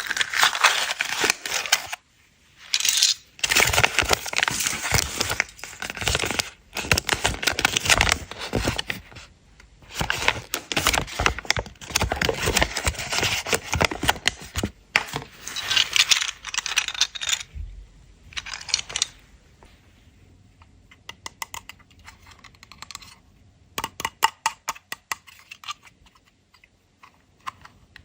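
Foil and plastic candy wrappers being crinkled and torn open close to the microphone, in dense rustling bursts for most of the time, then a run of light clicks and taps near the end.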